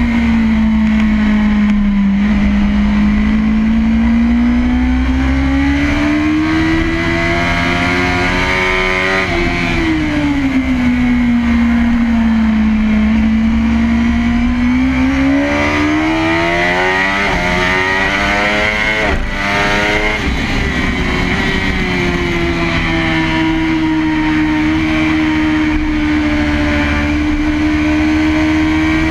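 Kawasaki ZX-10RR's inline-four engine at racing speed, heard from on board: the revs sink and rise as the bike brakes and accelerates through corners, then climb steeply under hard acceleration with a brief break about two-thirds of the way through, and hold high and steady near the end.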